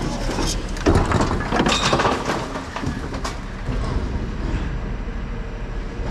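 Refuse truck's hydraulic rear bin lift tipping a full four-wheeled Euro bin into the hopper: rubbish and the bin clatter and bang for about a second and a half, starting about a second in, over the truck's engine running steadily.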